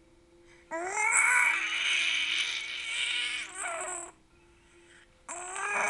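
Baby squealing with delight: one long, bending squeal of about three seconds starting about a second in, then another squeal starting near the end.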